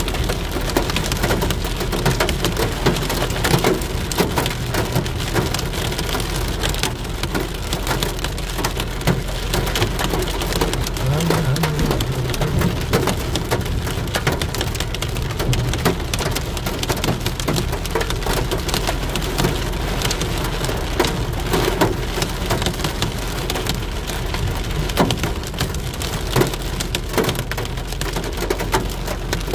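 Heavy rain falling: a steady, dense patter of drops hitting a surface.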